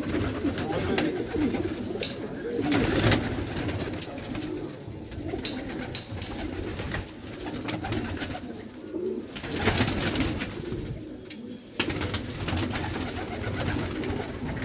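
A flock of domestic racing pigeons cooing continuously in a loft, with now and then a short burst of wing flapping.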